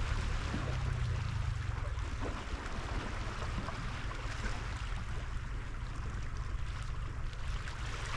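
Wind buffeting the microphone on an open shore: a steady low rumble with an even hiss over it.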